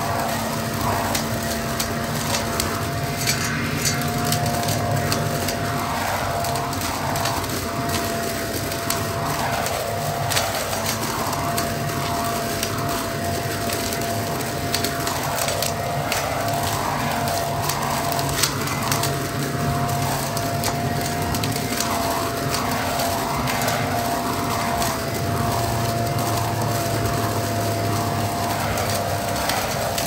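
Toro Ultra electric blower vac in vacuum mode, its motor running with a steady whine while it sucks up leaves, with frequent crackles and sharp clicks as leaves and sticks are drawn through and shredded.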